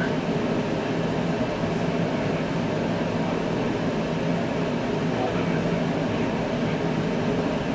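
Buick 401 Nailhead V8 engine running steadily at idle.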